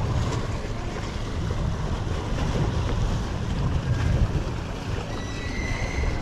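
Wind buffeting the microphone as a steady low rumble, with small waves lapping around the boat.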